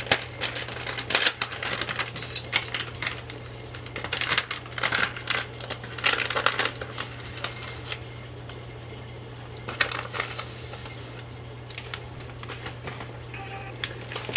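A measuring spoon clinks and scrapes against a spice container while onion powder is spooned into the sauce pot. The clicks come quickly for the first several seconds, then thin to a few scattered ones, over a steady low hum.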